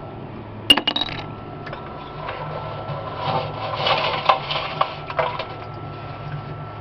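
Steel nuts and scrap pieces clinking: a sharp metal clank about a second in as a piece is dropped into a plastic bucket, then a gloved hand rummages and scrapes through wet, ground metal chips in a cement-mixer drum, with small clinks of metal on metal.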